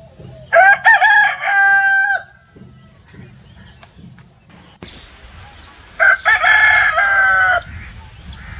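Roosters crowing: two long cock-a-doodle-doo crows, the first about half a second in and the second about six seconds in.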